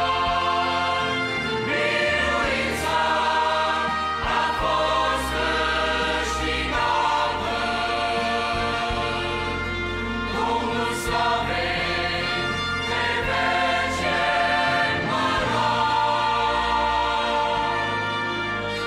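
Mixed choir of men's and women's voices singing a Romanian hymn refrain in harmony.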